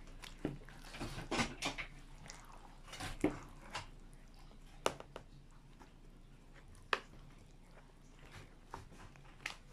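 Wooden spoon and spatula stirring wet kimchi paste and shredded vegetables in a basin: soft squelches and scrapes, busier in the first few seconds, then a few sharp clicks of the utensils now and then.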